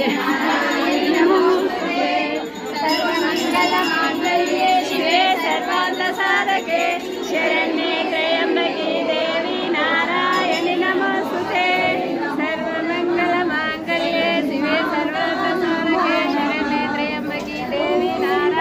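A group of women singing a devotional bhajan together, many voices overlapping.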